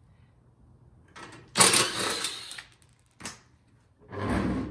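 Hands working on a single-stage snowblower to check its drive belt: a sudden rattling scrape of plastic and metal parts about a second and a half in, a short click, then another scrape near the end.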